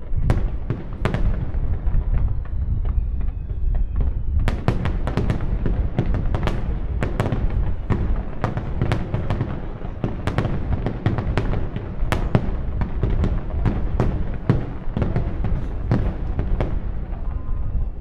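Fireworks display: a rapid barrage of aerial shell bursts, many sharp bangs and cracks over a continuous low rumble, growing denser about four seconds in.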